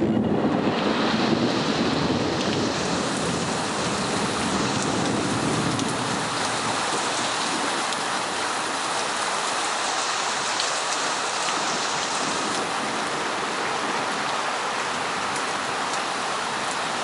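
Heavy thunderstorm rain pouring down steadily, with a low rumble in the first few seconds that fades out.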